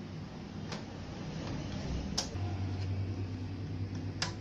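A few sharp clicks and taps of a TV circuit board and its plastic chassis frame being handled and fitted together, over a steady background noise; a low steady hum comes in about halfway through.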